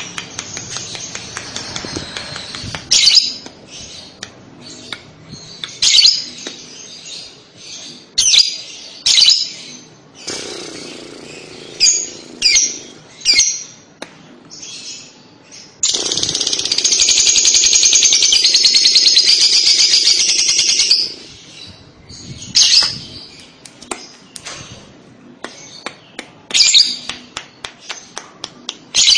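Fischer's lovebird calling: sharp high chirps, and past the middle one long, continuous rattling chatter of about five seconds. This is the 'kekek' (ngekek) chatter used to coax young lovebirds into calling back.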